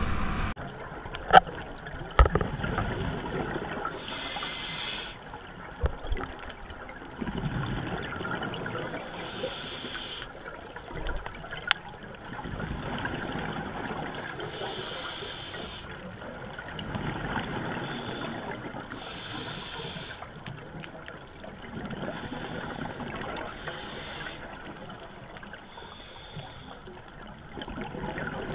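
Scuba regulator breathing heard underwater through a camera housing: hissing, bubbling exhalations come about every five seconds over a muffled water bed. Two sharp knocks sound in the first couple of seconds.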